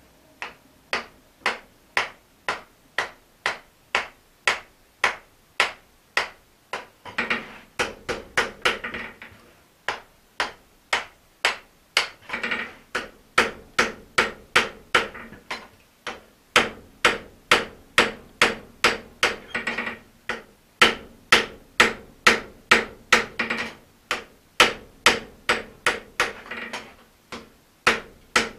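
Hand hammer striking a red-hot steel axe head on an anvil, forging it to final shape. Steady blows come about two a second, with runs of quicker strikes every few seconds, and the anvil rings under them.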